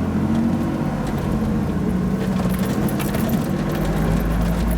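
1988 Toyota 4x4 pickup's engine running at low revs, a steady low drone that grows deeper near the end.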